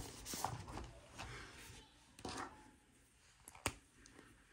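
Faint rustling of paper bills and envelopes being handled, with a few light taps and one sharp click a little past three and a half seconds in.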